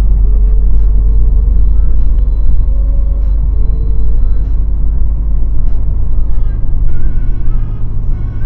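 Inside a truck cab while driving: a loud, steady low rumble of engine and road noise.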